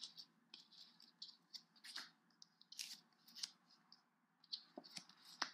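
Faint rustling and light clicks of playing cards being handled: cards drawn from a deck, slid and set down on a playmat, in many short scattered touches.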